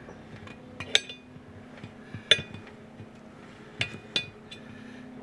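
Metal hand tools clinking against each other: four sharp clinks with a short metallic ring, the last two close together, over a faint steady low hum.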